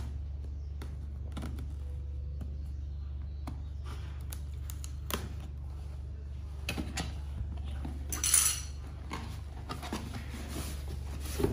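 A cardboard product box being opened by hand: scattered taps, clicks and scrapes on the cardboard, with a louder rustling slide about eight seconds in as the box comes open. A steady low hum runs underneath.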